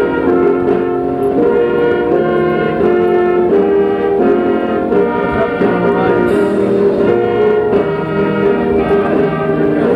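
Brass ensemble playing a slow tune in sustained, chord-like notes.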